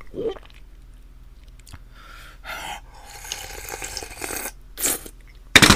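Slurping and sucking up soft Korean steamed egg (gyeranjjim) straight from a tipped bowl, in a series of short wet sucking noises, with a sharper, louder burst near the end.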